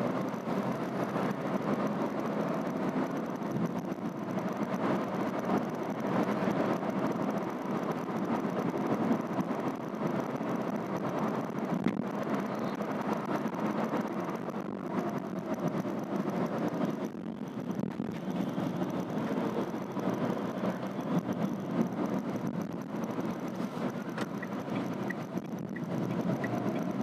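Steady cabin noise inside a Renault Triber AMT cruising at about 60 to 100 km/h: tyre, wind and engine noise from its three-cylinder petrol engine, heard from inside the car.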